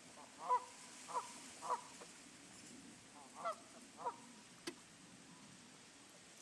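Waterfowl calling: five short calls, three in the first two seconds and two more a little past halfway, each a brief note that rises and falls. A single sharp click follows the last call.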